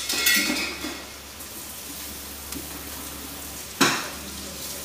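Water droplets sizzling off an empty aluminium wok heating on the stove: a steady crackling hiss, with two brief louder bursts, one at the start and one about four seconds in.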